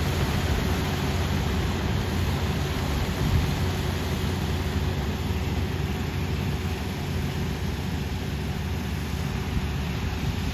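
Kubota combine harvester's diesel engine and machinery running steadily with a constant hum and hiss.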